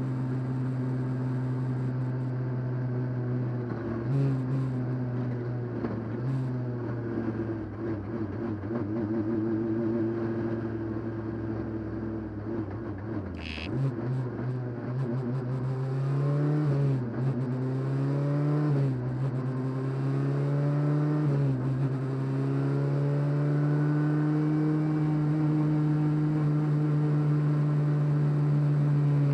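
Rally car engine heard from inside the cockpit while driving hard. It holds a steady high note at the start and again for the last several seconds. Through the middle, its pitch repeatedly rises and drops with the shifts and lifts, and a single sharp knock comes about halfway through.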